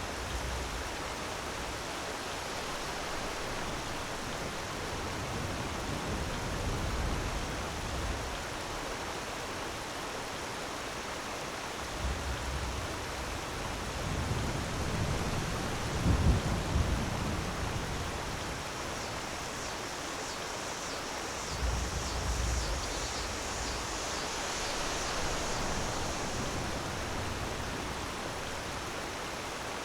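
Waterfall rushing steadily, with a few deeper rumbling surges, the strongest about halfway through.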